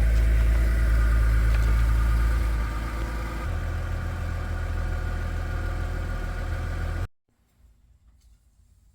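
Lexus IS 350's V6 engine running steadily at idle, a low rumble that eases slightly about three seconds in, then cuts off abruptly about seven seconds in.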